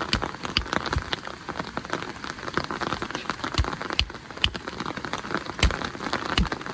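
Heavy rain pouring down, a steady hiss with many large drops striking close by as irregular sharp taps.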